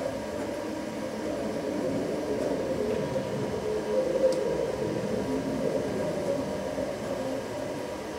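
The X and Y axis drive motors of a CNC-converted Grizzly G0704 milling machine run steadily, humming with tones that waver and shift as the table traces a circle under a pen.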